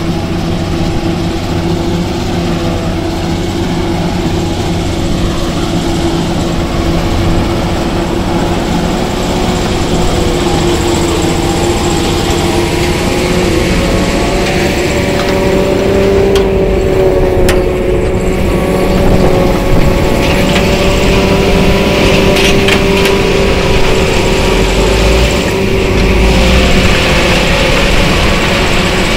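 Self-propelled forage harvester running loud and steady while chopping maize for silage, its engine and chopper making a continuous drone with a held tone that rises slightly in pitch about halfway through. A few short clicks or knocks come in the second half.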